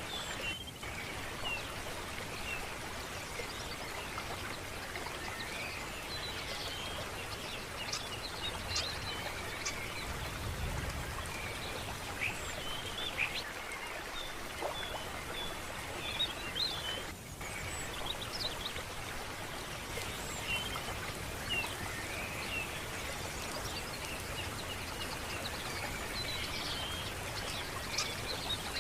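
Water running steadily in a stream, with small birds chirping and calling throughout.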